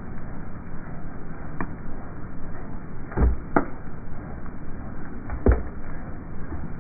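Plastic traffic cone creaking and cracking as a Ford Raptor's BFGoodrich tire slowly presses down on it, slowed down with the picture so it sounds deep and muffled. Under a low steady rumble come a few sharp cracks, the loudest about three and a half and five and a half seconds in.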